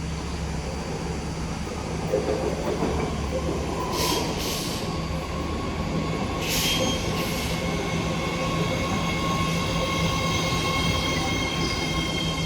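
BART train pulling into the station and slowing, with a steady low hum. Two short bursts of hiss come about four and six and a half seconds in, and a high wheel squeal with several pitches rises in the second half.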